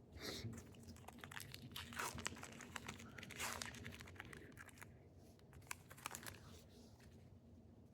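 Faint crinkling and tearing of a baseball trading-card pack wrapper being torn open, a run of small crackles and ticks with a few louder rips.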